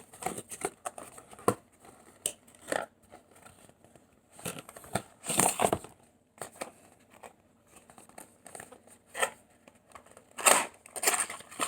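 A cardboard product box being opened and its packaging handled: short bursts of rustling, crinkling and tearing with quiet gaps between them, loudest about five seconds in and again near the end.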